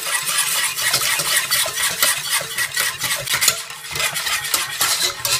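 Wire whisk stirring instant mushroom soup powder into water in a saucepan: fast, continuous strokes of the wires scraping and clicking against the pan.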